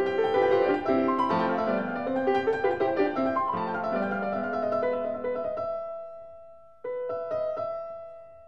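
Background solo piano music. The notes die away about six seconds in, then a new chord is struck and fades.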